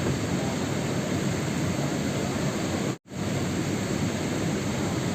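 Steady rain sound used as sleep noise, an even hiss of falling rain that cuts out for a split second about three seconds in, then carries on.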